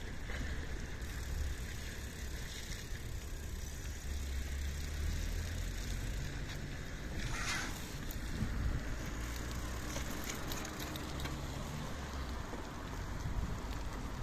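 Riding a bicycle along a wet street: a steady low rumble of wind on the microphone mixed with tyre noise on the wet road. A brief hiss about seven seconds in.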